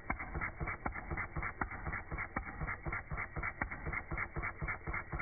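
Eachine ET5 miniature single-cylinder OHV four-stroke petrol engine running at a slow idle, a rapid train of sharp exhaust pops about five or six a second, some stronger than others.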